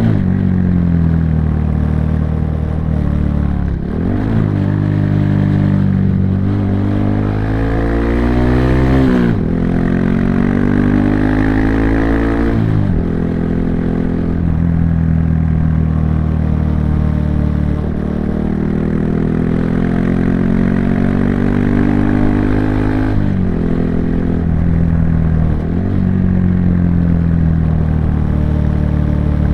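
Honda Monkey 125's single-cylinder engine and exhaust under way. The pitch climbs through the gears, with upshifts about 4, 9 and 13 seconds in, then holds a steadier cruise with brief dips near 23 and 26 seconds.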